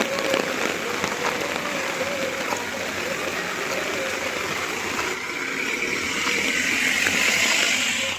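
Steady rain falling, a dense hiss that grows louder about five seconds in and cuts off abruptly at the end.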